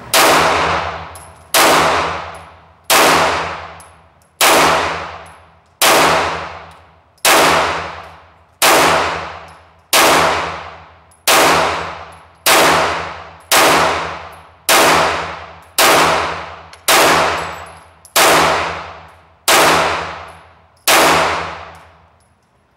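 Glock 34 Gen 4 9mm pistol firing about seventeen single shots at a slow, steady pace, roughly one every one and a half seconds. Each shot rings on in the echo of the indoor range.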